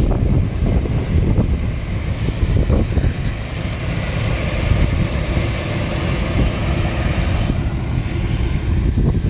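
Combine harvester running while it harvests barley, a steady low rumble with wind buffeting the microphone.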